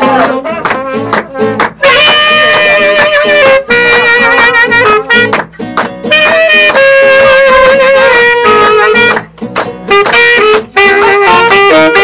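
Live instrumental break: tenor saxophone and trumpet playing held melody phrases over a strummed acoustic guitar, with short pauses between phrases.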